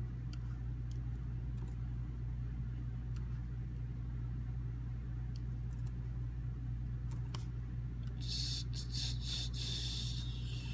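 Steady low hum under scattered faint clicks of typing on a computer keyboard, with a short burst of crackly rustling about eight seconds in.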